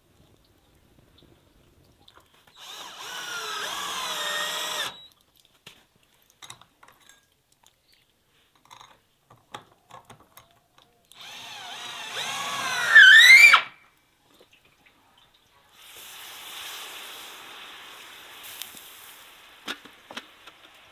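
Hand-held electric drill run in two bursts of about two seconds each, its motor whine shifting under load and climbing in pitch at the end of the second, louder burst. Then a steady sizzle that slowly fades, from food on a hot sadj.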